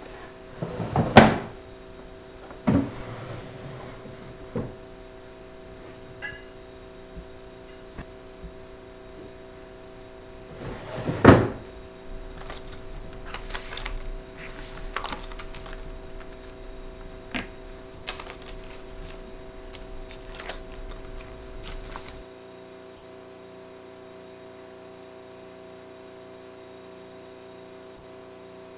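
Several knocks and thumps over a steady room hum, the loudest about a second in and again about eleven seconds in, then scattered lighter clicks and taps; after about twenty-two seconds only the hum is left.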